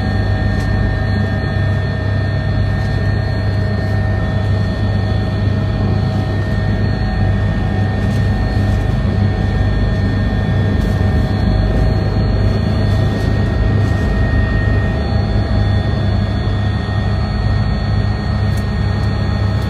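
Helicopter engine and rotor running steadily at an even pitch, without rising or falling.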